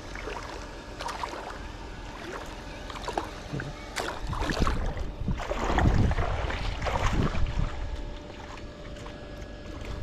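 River water splashing and sloshing in irregular bursts, heaviest from about four to eight seconds in, as a large snakehead caught on a set line is handled and landed.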